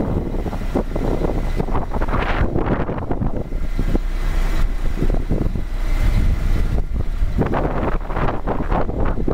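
2004 GMC C8C042 plow truck's diesel engine idling, a steady low hum, with irregular gusts of wind buffeting the microphone.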